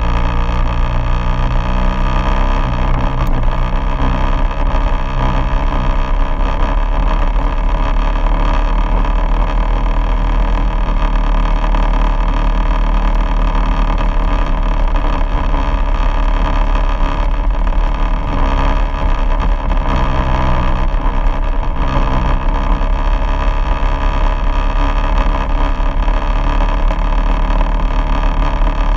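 Quad bike engine running steadily as the bike rides along a gravel track, heard close from a camera mounted on the bike, its pitch rising and falling slightly a few times with the throttle.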